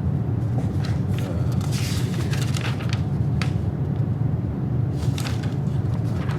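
A steady low hum, with scattered rustles and light clicks of paper being handled as invoice slips are looked over.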